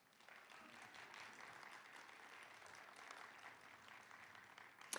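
Faint audience applause, many hands clapping in a steady patter that tails off near the end.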